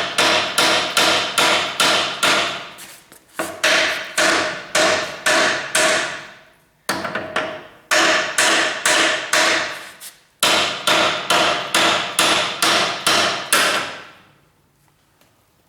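Sledgehammer blows on a car's front suspension spindle to shock a ball joint's taper loose, the 'sledgehammer method' used instead of a pickle fork. The blows come about three a second in four runs with short pauses between, each strike ringing like metal. The hammering stops near the end.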